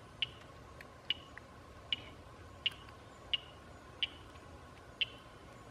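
Faint, evenly spaced high chirps, one about every three-quarters of a second, from a small animal calling at the lakeside, over a faint steady hum.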